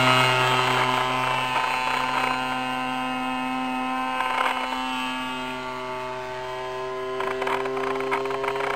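Titan ZG20 20 cc two-stroke petrol engine and propeller of a large radio-controlled Piper J3 Cub model in flight, a steady buzzing engine note. It eases down in pitch and fades as the plane moves away, then rises in pitch and grows a little louder in the last few seconds.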